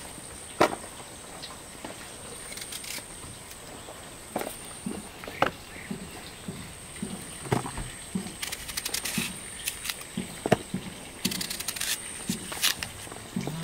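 A knife cutting crisp apples held in the hand, heard as scattered sharp cuts and light knocks, with two quick runs of crisp clicks about eight and eleven seconds in.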